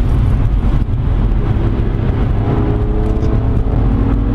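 Steady engine and road noise inside the cabin of a 2008 BMW 335i, with its twin-turbo 3.0-litre inline-six, moving at highway speed. The noise is a deep, even rumble, and a faint engine hum joins it about halfway through.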